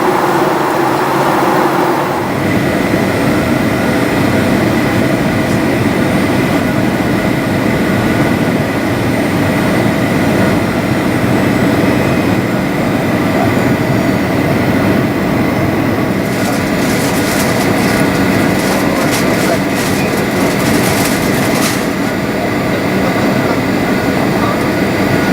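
Steady, loud rumble of engine and airflow noise inside a Boeing 737's passenger cabin. The sound shifts about two seconds in, and a run of light rattles or clicks comes through between about sixteen and twenty-two seconds.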